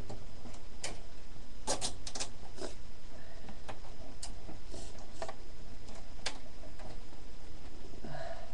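Nylon zip tie being threaded and pulled tight to fasten a computer case fan: irregular small plastic clicks and ticks over a steady low hum.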